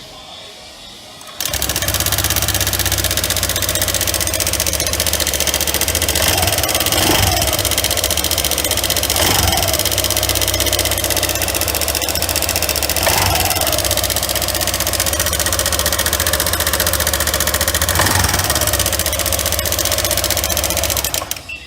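Honda PCX JF28 scooter's 125 cc single-cylinder four-stroke engine starting about a second in, then idling with four brief blips of the throttle, and stopping near the end. It runs with an abnormal mechanical noise, an engine fault in a scooter that went about two years without an oil change.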